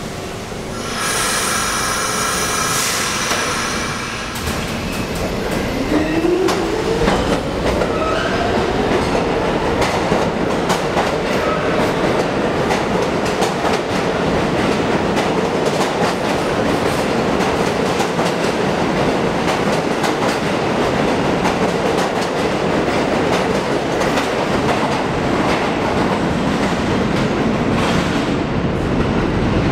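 New York City subway train departing a station. A door chime sounds about a second in, then the doors close and the electric traction motors whine upward in pitch as the train accelerates. Steady rumble and wheel clatter on the rails follow.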